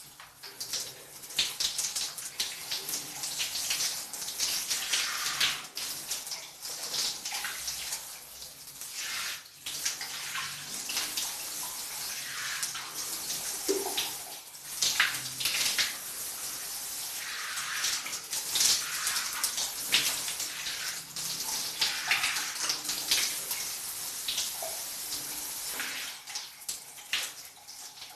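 Shower running, its spray falling and splashing as someone bathes under it. The splashing comes in uneven surges with brief dips, with no steady rhythm.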